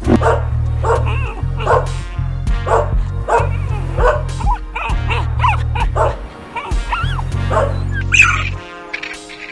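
A dog yipping and whimpering in short calls with bending pitch, about one every second, over background music; a different, higher call comes near the end.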